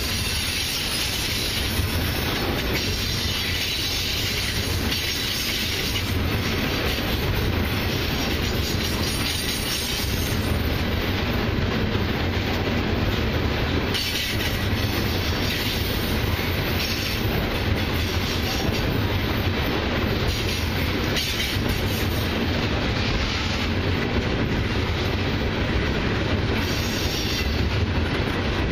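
Loaded crude oil tank cars of a long freight train rolling past: a loud, steady rumble and rush of steel wheels on the rails.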